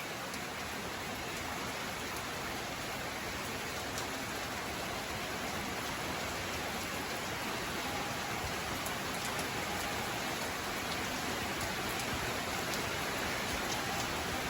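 Steady rain falling: an even, dense hiss with occasional faint drop ticks.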